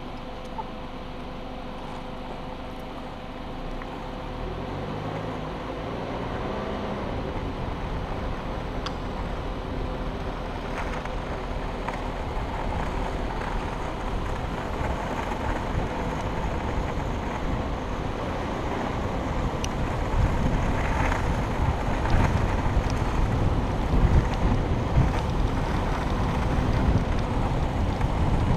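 Wind rushing over the microphone of a camera moving downhill, with road noise, growing louder as speed builds. A brief rising whine comes about five seconds in.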